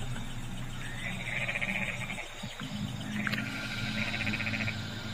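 A frog calling at night, giving two buzzy pulsed trills about two seconds apart over a steady low hum.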